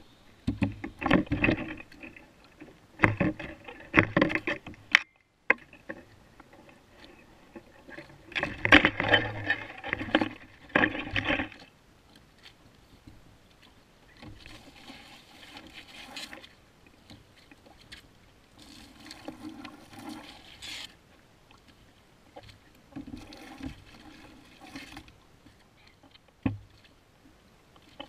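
Water splashing and sloshing at a kayak's side in irregular bursts of a few seconds, as king mackerel slime is rinsed off in the sea; the first bursts are the loudest. A single sharp knock sounds near the end.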